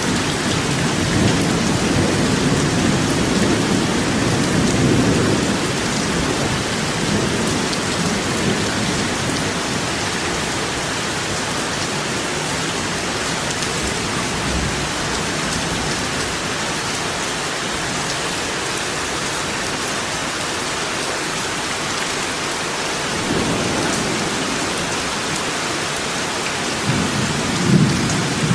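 Steady heavy rain falling in a forest, an even hiss. Low rumbles swell under it at the start, again a little before the end, and build right at the end.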